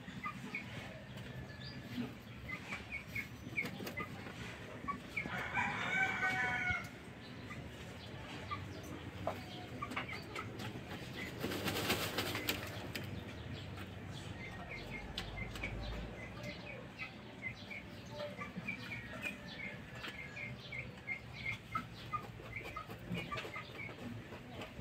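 Sussex rooster dust bathing: feathers rustling and wings flapping as it rolls and shakes in loose dirt, loudest around twelve seconds in. A rooster crows briefly about five seconds in, and small chirps come and go throughout.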